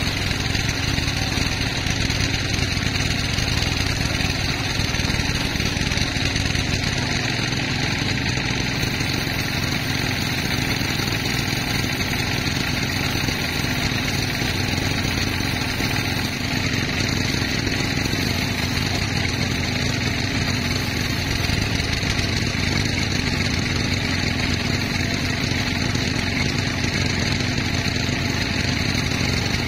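Sawmill machinery running steadily without a break.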